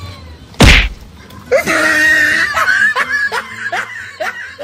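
A single loud, sharp bang about half a second in. From about a second and a half, laughter in quick, even 'ha-ha' pulses, about two or three a second, runs on over the rest.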